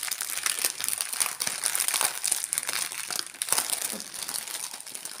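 Clear plastic packaging bags crinkling and rustling as they are handled, a continuous dense crackle.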